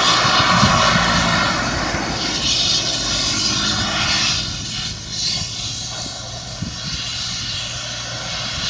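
Farm machine's engine running steadily, slightly louder in the first couple of seconds.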